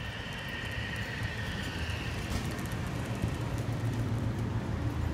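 A motorcycle engine running as the bike pulls away down the street, over a steady low rumble.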